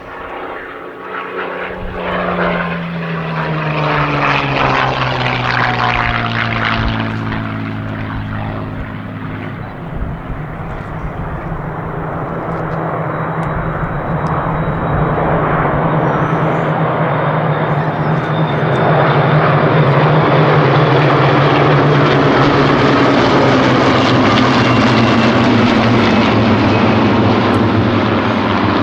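A formation of Spitfires and Hurricanes flying past, their piston aero engines droning together. The engine note falls in pitch over the first ten seconds as aircraft pass. It then settles into a dense, steady drone that grows louder about two-thirds of the way through.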